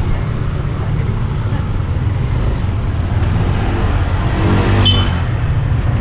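Steady low rumble of street traffic. An engine revs up briefly about four and a half seconds in.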